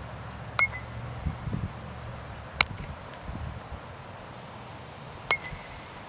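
Three sharp knocks of a softball being hit and fielded, about half a second, two and a half, and five seconds in; the first and last each carry a brief high ring, like a metal bat's ping.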